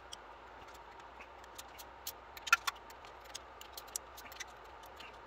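Faint, irregular ticking from the ratchet of a click-type torque wrench as the oil pan bolts are run down to 80 inch-pounds, with one louder click about halfway through.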